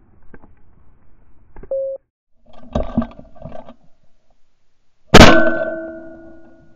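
Ducks quacking as they flush, after a short beep. About five seconds in comes a single shotgun shot, the loudest sound, very close, its report ringing away over a second or so.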